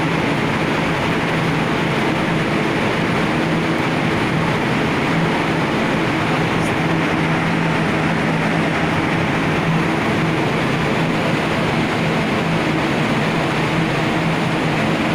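Ship's machinery running steadily: an even rushing noise with a constant low hum.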